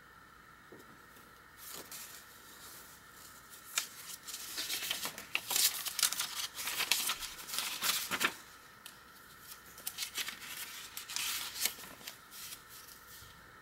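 Paper pages of a handmade journal being turned and handled: rustling and crinkling with small clicks, loudest in the middle, then softer rustles near the end.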